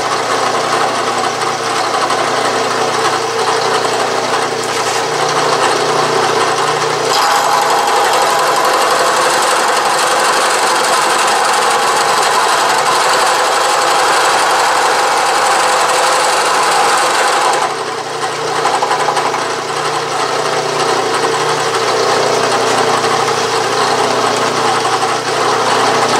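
Milling machine running a gear cutter through a gear blank held in a dividing head, cutting one of the last teeth. The cutting noise grows louder and harsher about seven seconds in and drops back suddenly a little over halfway through, leaving the machine running.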